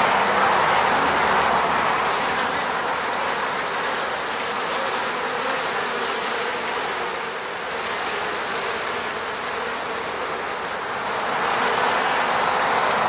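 Many honeybees buzzing around their hive, a dense steady hum that swells a little near the start and again near the end.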